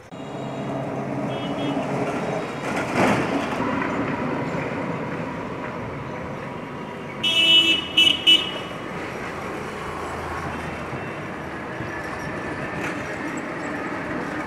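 Street traffic noise with a vehicle horn honking about halfway through: one longer toot, then two short ones.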